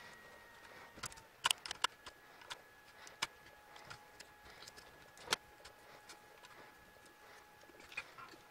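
Irregular sharp snips and cracks of side cutters biting chunks off a hard plastic scale-model baler's casing, the loudest about a second and a half and about five seconds in. A faint steady high hum runs underneath.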